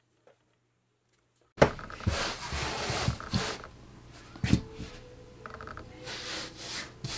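Near silence for about a second and a half, then a sharp knock and hands rubbing and pressing a cotton T-shirt flat on a cutting mat: a brushing of fabric with a few soft thumps.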